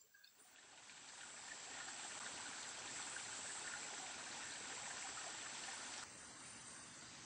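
Steady hiss of forest ambience that swells up over the first two seconds, with a thin, high, steady insect whine above it; the hiss drops sharply about six seconds in.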